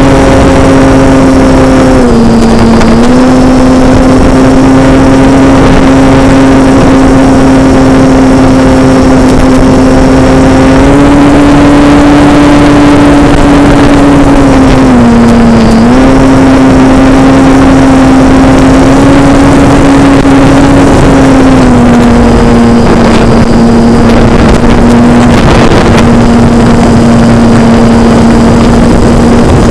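Model airplane's motor and propeller droning loudly in flight, its pitch dipping briefly twice and stepping down a little near the end as the throttle changes, over rushing airflow on the onboard microphone.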